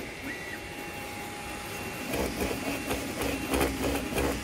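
Elegoo Neptune 4-series 3D printer running with a steady hum, and from about halfway in its nozzle scraping and knocking across the top of the print in irregular bursts. The dragging is the sign of the nozzle sitting too low, which the owner puts down to the nozzle height (Z offset).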